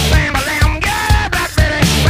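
Loud rock music with a steady drum beat.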